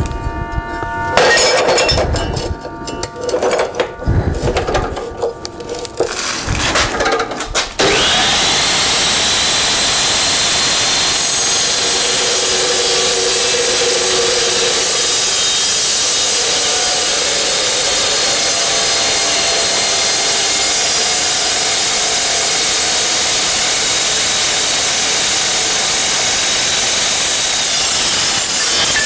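Steel pieces knocking and ringing as they are handled, then, about eight seconds in, an Evolution Rage 2 chop saw starts and cuts steel steadily through the rest.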